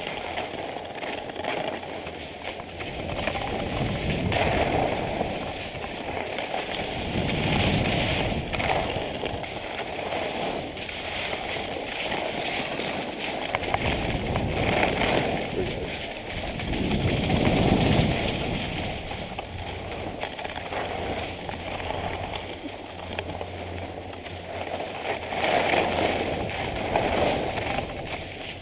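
Skis scraping and carving on groomed snow, with wind rushing over the camera microphone, swelling and easing every few seconds.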